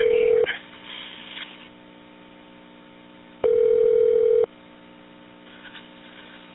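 Telephone line tone on a recorded 911 dispatch line: a steady single-pitched beep about a second long that stops half a second in and sounds again about three and a half seconds in, over a faint line hum.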